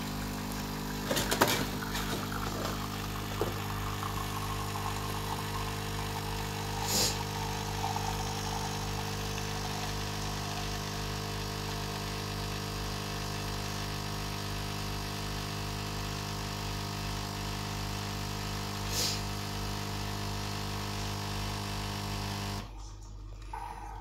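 L'OR Barista coffee machine's pump running steadily while it brews a capsule into a mug, a hum with a fixed tone. There are a few clicks about a second in and two brief hisses partway through. The pump cuts off suddenly near the end as the brew finishes.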